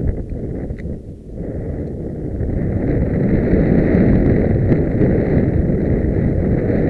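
Wind rushing over a helmet-mounted camera's microphone as a horse gallops cross-country, loud and steady. The rush dips briefly about a second in, then builds back louder.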